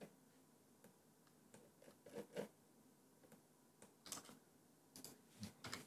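Faint, scattered clicks and taps of a computer mouse and keyboard over quiet room tone.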